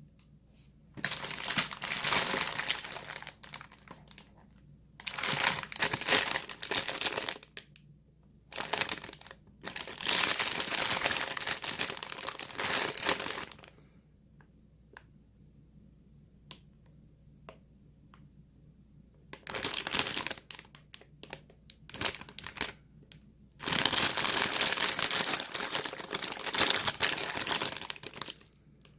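Crinkly plastic packaging being handled and crumpled, in several bouts of a few seconds each with quieter gaps between.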